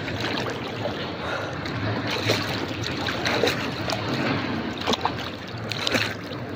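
River water sloshing and lapping right at the microphone as a bather floats on his back in it, with many small splashes and drips.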